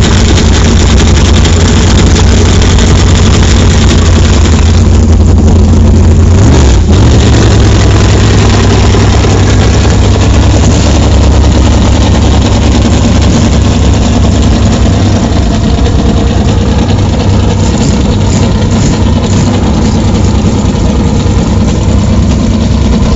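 Big V8 in a mud bog buggy running at a steady idle through open tube headers, a loud, deep rumble.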